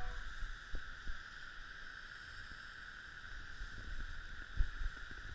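Wind buffeting the microphone in low gusts, over a steady hiss.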